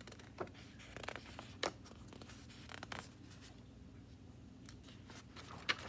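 Paper pages of a small picture book handled and turned: soft rustles and a few light clicks, the sharpest about a second and a half in and just before the end, over a low steady room hum.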